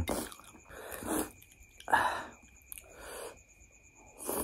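Close-miked eating of spicy chicken noodle soup: four short wet slurps about a second apart as noodles are sucked into the mouth, with chewing between them.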